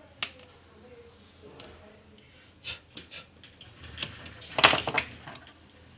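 Scattered light clicks and taps of a screwdriver and small parts on a stripped-down laptop chassis, with a louder short clatter a little before the end.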